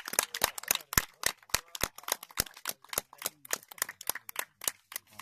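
A small group of people clapping by hand, irregular sharp claps several times a second, which stop near the end.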